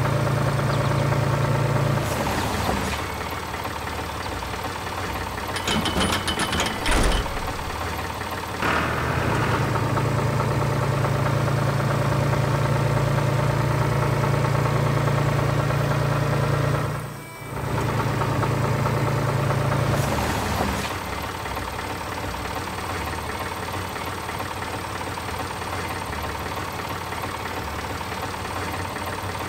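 Tractor engine sound effect running steadily with a low hum, broken by a brief burst of clicking, rattling clatter about a quarter of the way in and a short dip a little past halfway.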